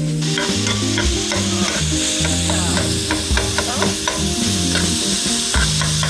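Food sizzling as it fries in a hot pan and is stirred, starting just after the beginning. Background music plays underneath.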